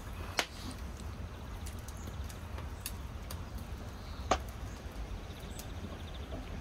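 Wood fire in a clay oven crackling, with scattered sharp pops over a low steady rumble; the loudest pop comes about four seconds in.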